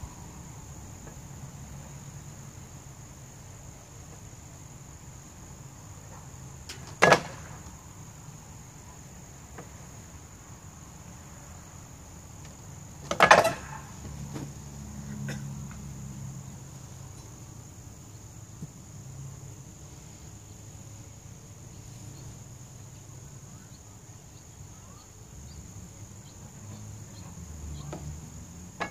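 A steady high-pitched chorus of insects, with two loud sharp knocks, the first about seven seconds in and the second about six seconds later, against a low background rumble.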